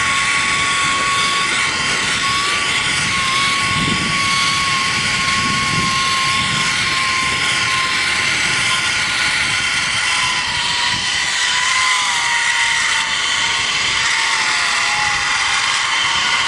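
Zipline trolley pulley running at speed along a steel cable: a steady high-pitched whine that drops slightly in pitch near the end.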